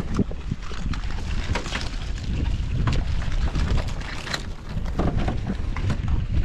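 Wind buffeting the microphone as a steady low rumble, with scattered light knocks and clicks.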